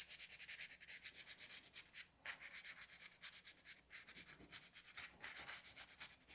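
Faint, quick back-and-forth scrubbing of a Scotch-Brite-type scouring pad on an RC slipper clutch pressure plate, cleaning its friction face.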